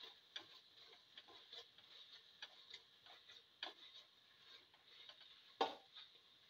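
Slotted spatula stirring and scraping chopped potato, bottle gourd and tomato in a pressure cooker pan: a faint, irregular run of clicks and scrapes, with one louder knock near the end.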